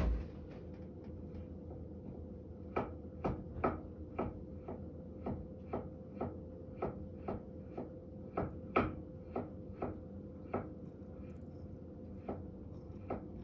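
Kitchen knife chopping carrot on a cutting board: evenly spaced sharp knocks about two a second, starting a few seconds in and slowing to a few scattered cuts near the end.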